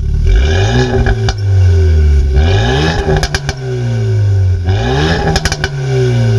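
Renault Mégane 4 R.S. 280's 1.8-litre turbo four-cylinder revving through a Milltek non-resonated catback exhaust, the revs climbing and dropping about three times. Sharp crackles pop from the exhaust each time the revs fall.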